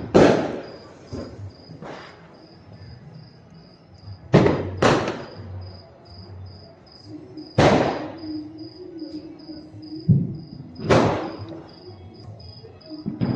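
Diwali firecrackers going off one after another: sharp bangs, each with an echoing tail, five loud ones and a few fainter. Behind them crickets chirp steadily.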